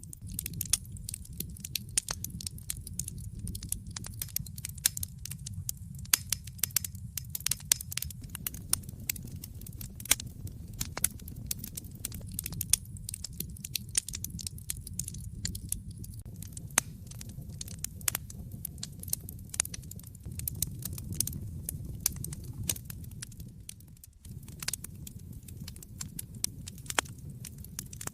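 Fire crackling in a fireplace: many irregular sharp pops and snaps over a steady low rumble of the burning. The rumble briefly drops away near the end.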